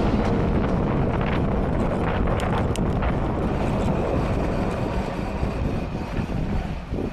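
Wind buffeting the microphone of a camera on the move, over the rough rumble of wheels rolling along paving, with a few light clicks about two and a half seconds in. The rumble gets somewhat quieter near the end.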